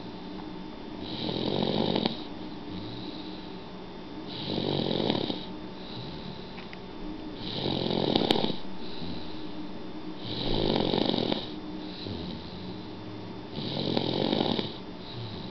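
A sleeping baby snoring rhythmically, five snores about three seconds apart, each lasting about a second.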